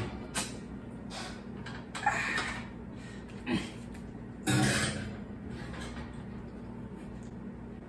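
A baking dish of cake batter is set onto a pulled-out oven rack and pushed toward the back, with a few short scrapes and clunks of dish and metal rack. The loudest comes about four and a half seconds in, over a steady low hum.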